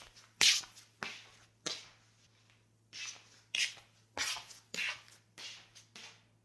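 Footsteps of someone walking in home slippers: a run of soft slaps, each with a brief scuff of the sole, about two steps a second, pausing for about a second partway through before walking on.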